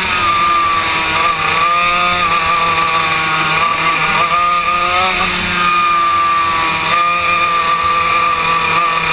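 Yamaha KT100 two-stroke kart engine at racing speed, heard from on board. Its pitch dips and climbs again several times as the driver comes off and back onto the throttle through the turns.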